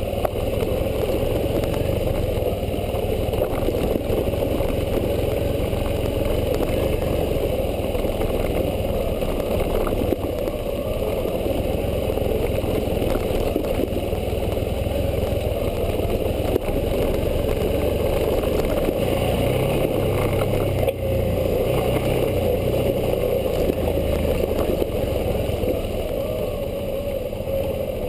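Suzuki V-Strom 650 motorcycle's 645 cc V-twin engine running steadily at low trail speed on a dirt track, with a few brief knocks along the way.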